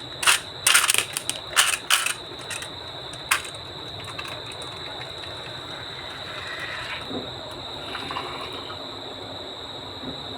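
Toys clacking and knocking on a HABA wooden marble run, a quick cluster of sharp hits in the first few seconds, then a steady rolling rattle along the wooden track.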